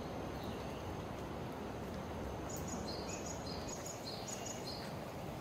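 Steady outdoor rushing noise, like running water or rain in the forest. In the second half a bird repeats short high chirps at two alternating pitches.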